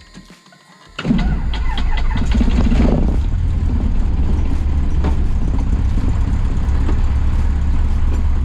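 Cessna 150's Continental O-200 four-cylinder engine starting about a second in, catching at once and then running steadily.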